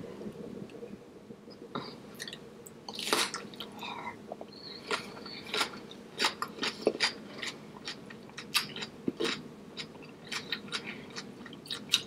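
A person chewing and biting food close to the microphone, with irregular sharp wet mouth clicks and smacks that begin about two seconds in.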